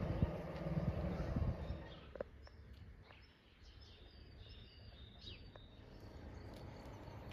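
Outdoor ambience: a low rumble fades away about two seconds in, then small birds chirp and call in short high notes.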